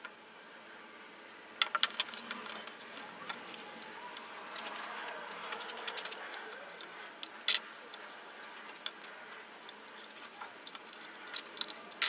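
Box-jointed plywood box sides being handled and fitted together: a scatter of light wooden clicks and knocks, starting about a second and a half in and busiest over the next few seconds, with a sharper knock past the middle.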